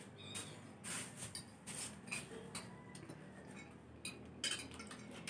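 A fork clinking and scraping against a plate in an irregular run of short clicks and scrapes, busiest about a second in and again just before the end.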